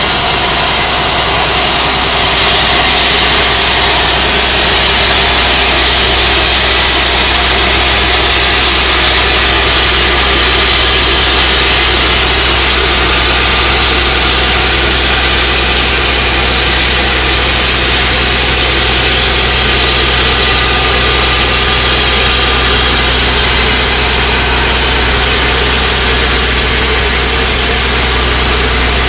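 Diesel engine of a crawler-mounted blasthole drill rig running steadily: a deep even hum under a loud, constant hiss.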